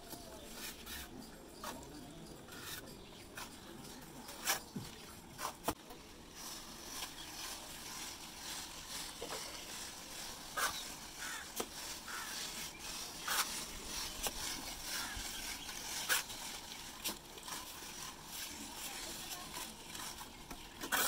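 Hand float rubbing and scraping over freshly applied cement plaster on a wall, an irregular gritty scrape, with scattered light taps and clicks of the tools.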